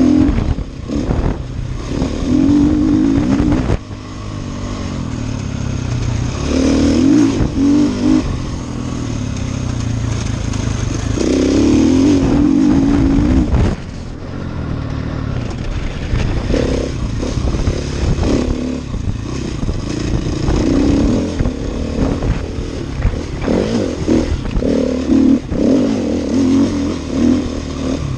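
Off-road motorcycle engine under hard throttle, revving up and down in repeated surges as the bike accelerates and backs off, with sudden drops where the throttle is shut.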